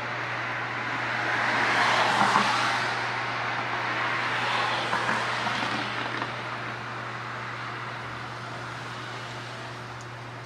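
A car passes by: its tyre and engine noise swells to a peak about two seconds in, then slowly fades, over a steady low hum.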